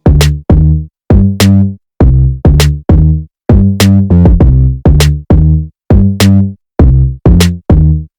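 Electronic background music: loud drum-machine beat with deep bass hits, about two a second, cut off sharply between hits.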